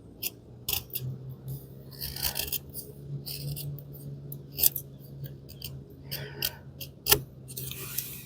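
A D2 steel folding knife blade shaving curls off a hardwood stick to make a feather stick. It makes a run of short, irregular scraping strokes, about one or two a second, with a sharper one about seven seconds in.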